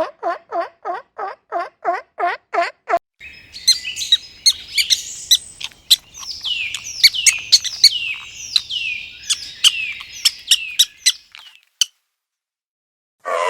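Birds chirping and singing in quick, high notes, many sliding downward, after an opening run of about a dozen evenly spaced lower calls, three or four a second. The sound stops about a second before the end.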